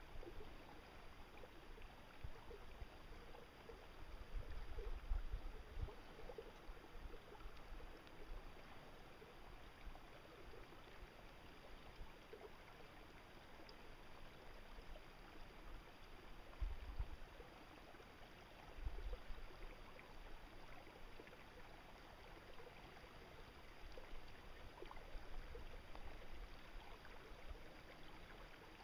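Faint, steady outdoor ambience: an even hiss, broken a few times by brief low rumbles, about five seconds in and twice more past the middle.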